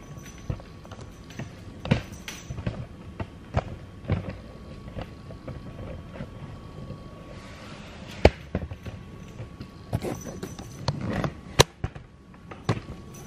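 Irregular knocks, clicks and scrapes of a cat rummaging inside a woven basket, the basket shifting on a tiled floor. The sharpest knocks come about eight and eleven and a half seconds in.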